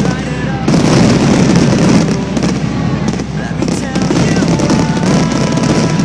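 Large display fireworks going off in a dense, continuous barrage of bangs and crackles.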